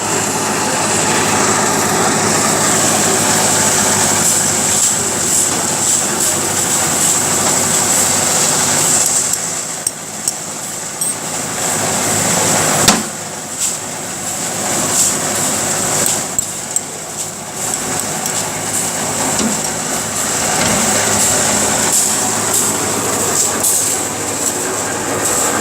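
Diesel-engine lift-hopper drum concrete mixer running steadily, with a constant high whine, clattering and scattered sharp knocks; the loudest knock comes about halfway through.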